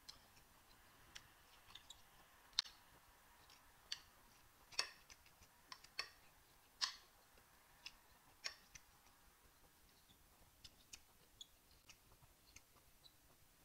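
Close-miked eating of rice and beans: irregular soft wet mouth clicks and smacks of chewing, with a few louder ones in the middle and fainter ones near the end.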